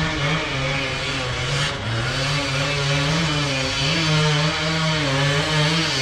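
Off-road dirt bike engines revving and dropping back again and again, working hard to climb a steep slope.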